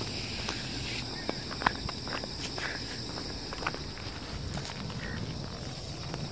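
Footsteps of a walker and a Labrador retriever on asphalt, a scatter of light clicks with one sharper click about a second and a half in, over a steady high-pitched insect chorus.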